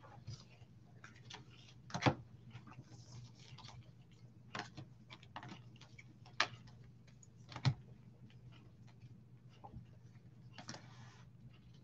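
Trading cards handled on a tabletop with gloved hands: scattered light clicks and taps of cards against the table, with sharper taps about two, six and a half and seven and a half seconds in and two brief spells of rustling. A low steady hum runs underneath.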